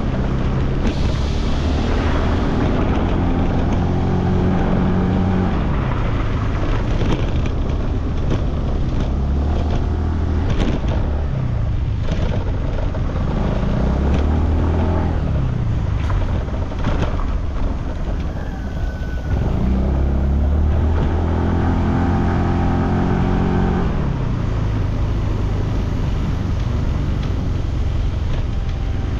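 Motor scooter engine running under way, its pitch climbing and then dropping back about three times as the throttle is opened and eased.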